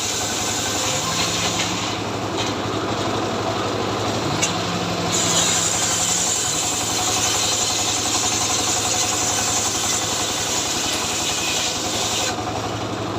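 Two-stroke chainsaw engine running steadily, with a brighter, higher hiss from about five seconds in that drops away near the end.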